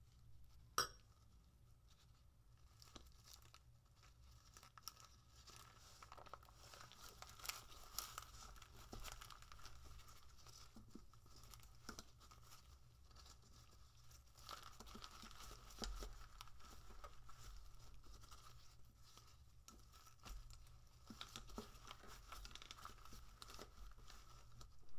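Quiet crinkling and rustling of a dried seaweed (gim) sheet, disposable gloves and a bamboo rolling mat as kimbap is rolled and pressed by hand, with scattered faint clicks. A single sharp tap about a second in.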